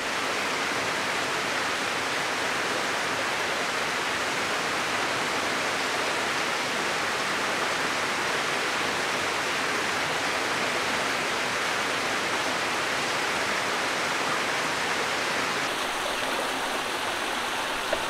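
Steady rush of water from a small mountain stream and waterfall spilling over rocks. It is a continuous, even noise with a slight change in tone near the end.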